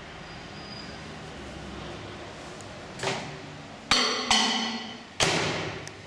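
Four sharp knocks about a second apart, each ringing out briefly; the middle two are the loudest.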